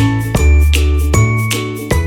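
Background music: a bright jingly tune over a steady bass line and beat.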